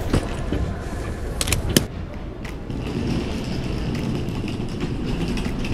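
A wheeled suitcase handled at a baggage carousel, with a few sharp clicks and knocks in the first two seconds, then its wheels rolling with a steady rumble over a tiled floor.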